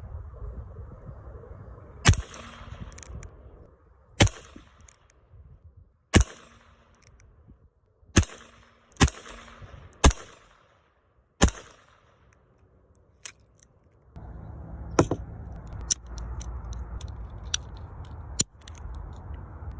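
Handgun shots: seven sharp reports spaced one to two seconds apart, each followed by a short echoing tail. Near the end come a few lighter cracks and clicks over a steady low background rumble.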